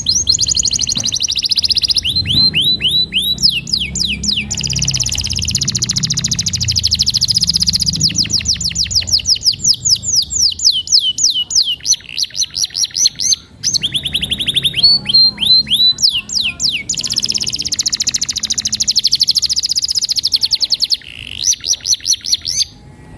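Domestic canary in full song: a long run of rapid trills, each a fast series of repeated chirping notes, switching to a new phrase every few seconds.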